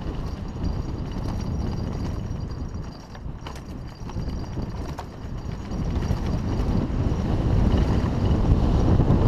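Haro hardtail mountain bike rolling fast down dry dirt singletrack: wind rushing over the camera microphone with tyre noise, and sharp knocks and rattles from the bike over bumps. The rush eases about three seconds in, with a cluster of knocks, then builds again toward the end.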